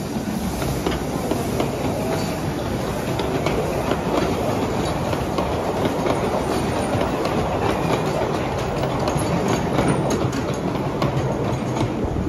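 Passenger carriages of a 10¼-inch gauge miniature railway rolling past close by: a steady rumble of small wheels on the track with quick clicks over the rail joints.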